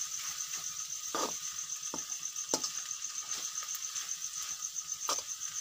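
Metal spoon stirring okra fry in an aluminium kadai, a handful of irregular scrapes and knocks against the pan. A steady high pulsing chirp runs behind it.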